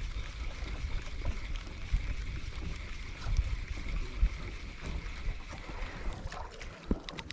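Wind buffeting the microphone on a small fishing boat at sea, in irregular low rumbles, with a faint steady high hum that fades out about six seconds in.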